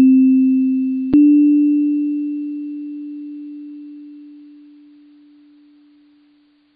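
Closing jingle of pure, bell-like tones: one tone sounds at the start and a slightly higher one is struck about a second in, then it rings on and slowly fades out over about six seconds.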